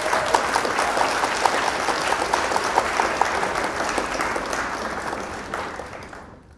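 Applause: many hands clapping steadily, fading out near the end.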